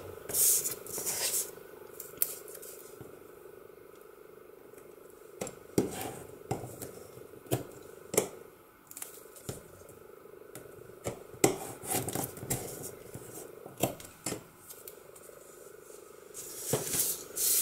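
Double-sided tape pulled off its roll and torn, with paper handled on a cutting mat: scattered short rips, rustles and light taps over a faint steady hum.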